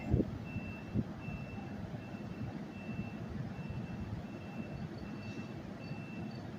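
A short, high electronic beep repeating steadily about every three-quarters of a second, over the low rumble of an electric bilevel commuter train standing at the platform. A couple of dull thumps come near the start.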